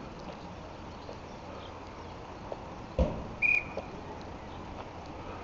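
A single sharp thump about three seconds in, followed moments later by one brief, high, steady whistle note, over low outdoor background noise beside a standing steam train.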